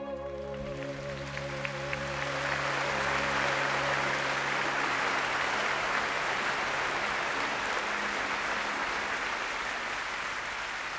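Concert audience applauding: the applause swells within the first two seconds and carries on steadily, easing slightly near the end. Under its start, a female singer's final held note with vibrato and the sustained accompanying chord die away.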